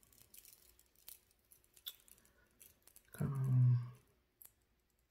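Small clicks and taps of metal rings knocking against each other as a ring is worked off a finger. A brief wordless voice sound comes a little past three seconds in.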